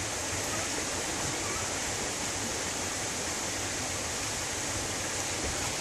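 Steady rushing water of a creek, an even hiss with no breaks.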